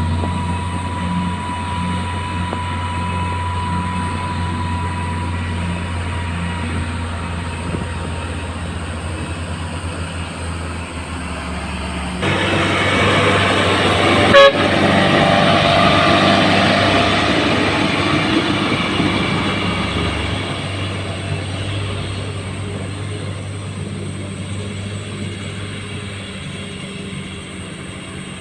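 Motor grader's diesel engine running with a steady low hum. About twelve seconds in, a louder rushing mechanical noise suddenly joins, with a sharp click shortly after, then slowly fades.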